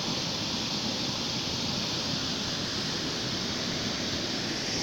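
River water rushing steadily, a constant hiss and rumble of fast-flowing floodwater.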